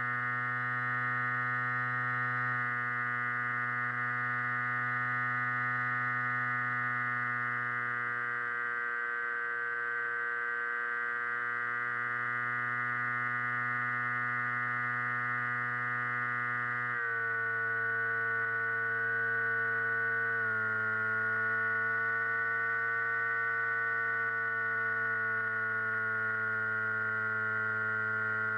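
The flying wing's electric motor and propeller running with a steady, many-overtoned whine. Its pitch drops abruptly twice in the second half.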